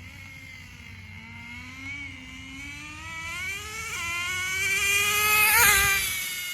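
Nitro RC car's .15 two-stroke glow engine running at speed, its high whine climbing steadily in pitch and growing louder, loudest near the end as the car passes close by, then dropping in pitch as it moves away.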